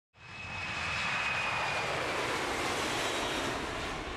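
Jet aircraft engine noise: a steady rush with a high whine that slowly drops in pitch, starting abruptly.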